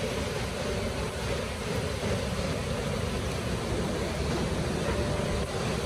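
Steady rushing of the Dordi river in flood, with wind buffeting the microphone.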